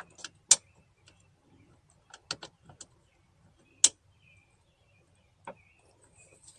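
Irregular sharp metallic clicks and clinks as a bolt and tool knock against the inner metal of a car door while the last window-motor bolt is worked into its hole. The loudest single clink comes about four seconds in.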